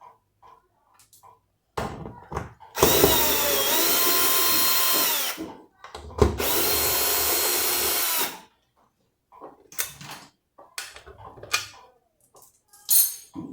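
Electric drill-driver run twice in short bursts, its motor whine ramping up to a steady speed and winding down each time, with small clattering knocks of tools and parts around it.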